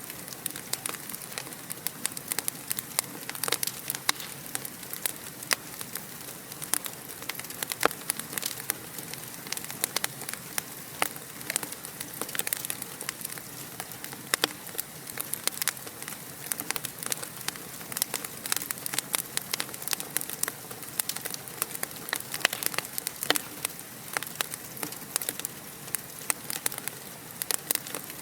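Fireplace fire crackling, with dense irregular pops and snaps over a soft steady hiss.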